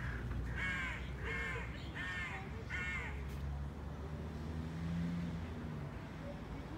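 A crow cawing four times in quick succession, over a low steady rumble.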